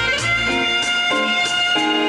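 Live rock band playing through a stage PA: long held lead notes, some sliding in pitch, over drums and bass guitar.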